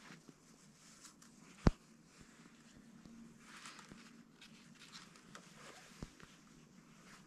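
Faint rustling and scraping of cord being wrapped and pulled tight around wooden poles while lashing a frame. A single sharp knock comes about a second and a half in, and a fainter one near the end.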